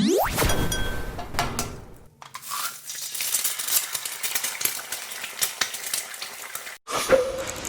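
A rising whoosh at the start, then kitchen work: stirring with small clinks of utensils against dishes.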